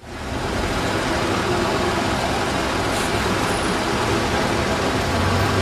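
Steady city-street traffic noise of cars driving past, fading in at the very start.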